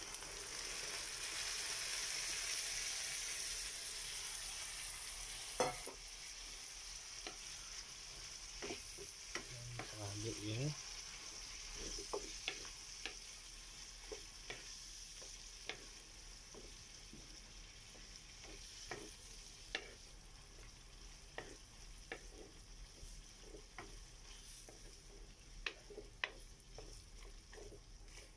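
Hot oil sizzling in a frying pan as pig's blood hits crispy fried pork pieces. The sizzle is loud at first and slowly dies down. A wooden spoon knocks and scrapes against the pan many times as the mix is stirred.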